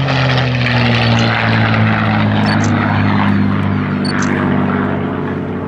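P-51D Mustang's Packard Merlin V12 engine running as the fighter flies overhead. Its note slowly slides lower and fades a little toward the end as it moves away.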